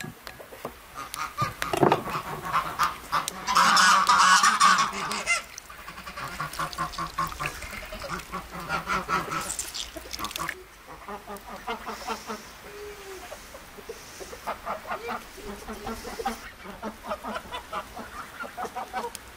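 Domestic geese honking among clucking chickens, with a loud burst of honking about four seconds in that lasts a second or two.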